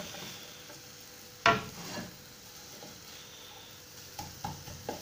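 Spatula stirring scrambled egg and onion in a nonstick pot over a low sizzle, with one sharp knock of the spatula against the pot about a second and a half in and a few lighter taps near the end.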